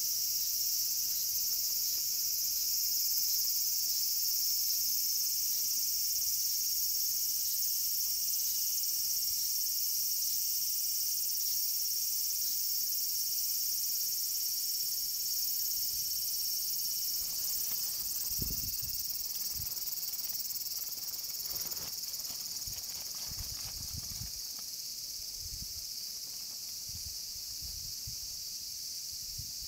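Steady, high-pitched chorus of insects, with faint chirps about once a second in the first half. From a little past the middle, scattered soft low thumps and rustling join it.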